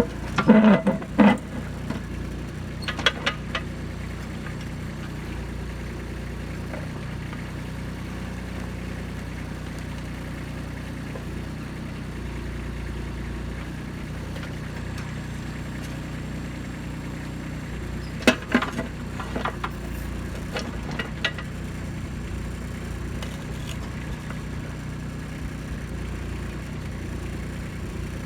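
Kubota B2630 compact tractor's diesel engine running steadily while the backhoe digs rocks, with sharp metallic clanks near the start and again about two-thirds of the way through.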